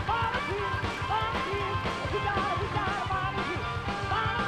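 Live rock band playing: a lead line of repeatedly bending notes, most likely electric guitar, over driving drums and bass.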